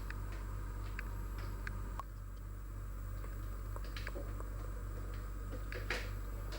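Steady electrical hum and a faint high whine from bench electronics, with a few scattered light clicks at irregular intervals, the sharpest about six seconds in.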